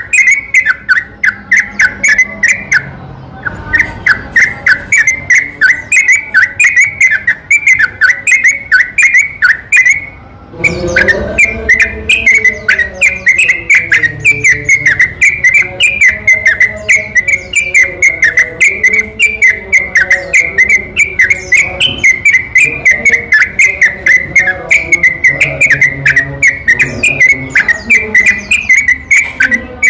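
Yellow-vented bulbul song used as a lure: a fast, unbroken run of short whistled chirping notes repeated many times a second. It pauses briefly twice in the first third, and lower wavering calls join from about a third of the way in.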